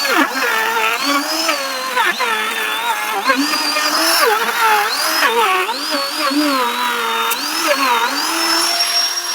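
Electric woodworking power tool running, its motor whine sagging and recovering over and over as the bit or blade is pushed into the wood, then running steady and free for the last second or so.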